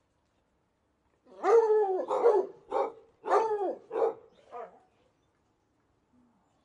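A dog barking, about six barks in quick succession, the last one weaker.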